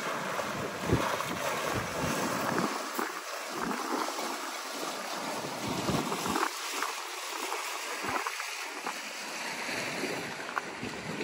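Small lake waves splashing and slapping against a stone pier and its steps, with gusty wind buffeting the microphone in uneven low rumbles.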